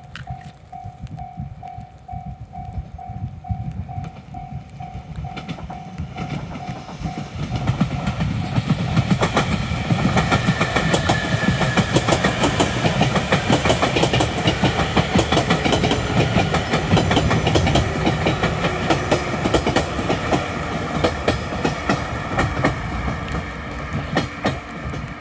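A Japanese level-crossing warning bell dings about twice a second. From about eight seconds in, a six-car electric train passes loudly, its wheels clattering over the rail joints with a heavy rumble that drowns out the bell.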